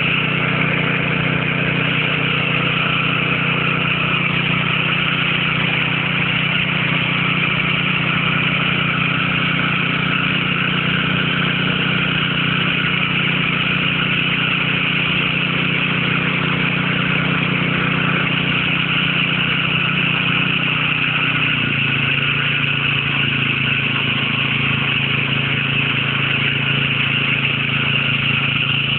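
Small petrol engine of a portable water pump running steadily, with the constant hiss and splash of water gushing out of its discharge onto the ground. The engine note drops slightly a few seconds before the end.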